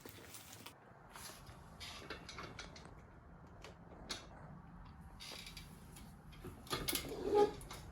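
Faint scattered clicks and small handling noises, with a few louder clicks about seven seconds in.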